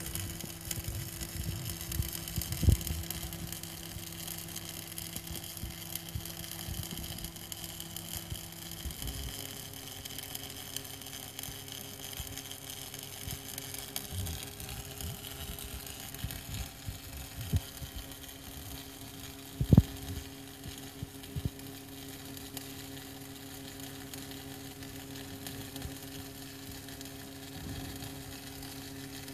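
External automatic pipe welding machine laying a cap pass on a pipe joint: a steady welding-arc hiss and crackle over an electric hum. The hum changes pitch about a third of the way through, and a couple of sharp clicks stand out.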